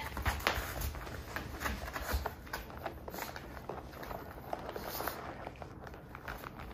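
Faint, scattered soft taps and small clicks from a pug and cats padding about on tatami mats.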